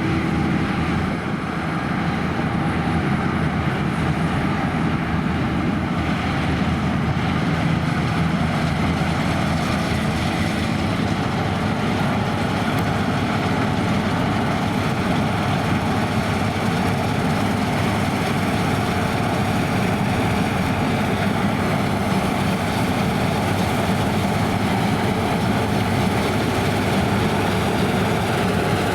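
Claas Lexion 580 Terra-Trac combine harvester running steadily while combining barley, a continuous engine and machinery drone that holds an even level throughout.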